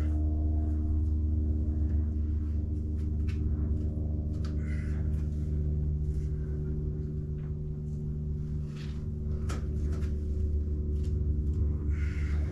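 Steady low drone of many layered, sustained tones, like a gong or singing bowl, from background music, with scattered faint taps and scuffs over it.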